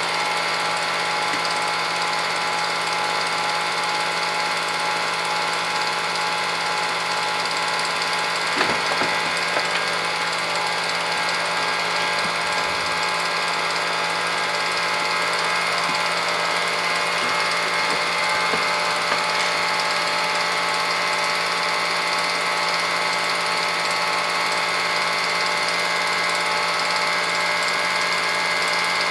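Film projector running: a steady motor and fan whir with the even mechanical clatter of the film transport, with a couple of brief knocks around nine seconds in.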